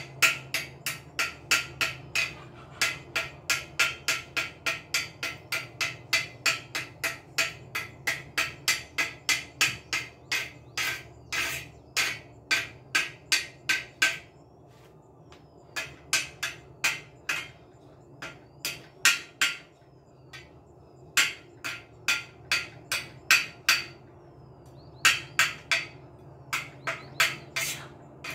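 Hammer blows on metal, about three a second, each strike ringing briefly, with a few short pauses between runs of blows.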